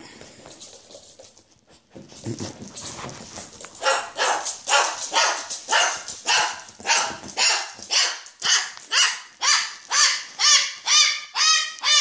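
A pet's loud, repeated calls, about three a second, starting around two seconds in and settling into an even, honking rhythm near the end.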